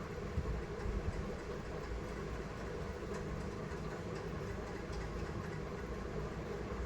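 Freshly serviced Lloyd air conditioner running, its blower giving a steady hum and rush of air.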